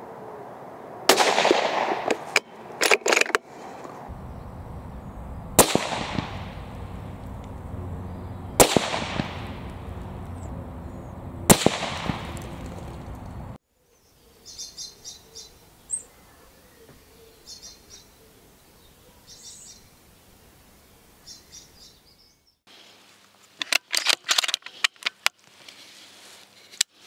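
Four rifle shots from a Mauser M18 Fenris bolt-action rifle in 6.5 Creedmoor, about three seconds apart, each a sharp crack that rings out briefly. After them comes a quiet stretch with faint chirps, and near the end a quick series of clicks and knocks.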